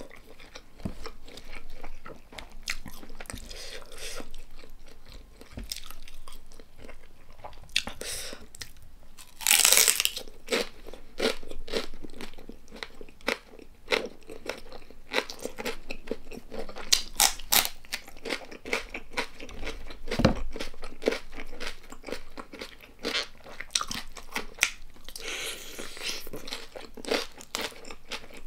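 A person biting and chewing crunchy food close to the microphone: crisp crunches and wet chewing, with the loudest crunch about ten seconds in.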